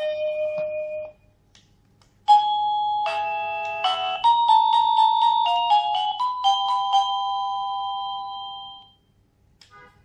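Aerb plug-in wireless doorbell receiver playing its electronic chime tunes as its music button is pressed to step through the melodies: one tune cuts off about a second in, and after a short gap another melody of clear notes plays for several seconds. A faint button click near the end.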